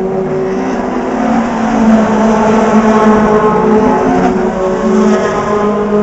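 Several open-wheel single-seater race cars passing at speed one after another, their high-revving engine notes overlapping and shifting in pitch as they go by.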